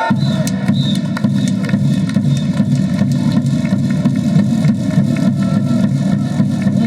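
Loud, steady din of a baseball stadium crowd, heavy in the low range, with scattered sharp clacks.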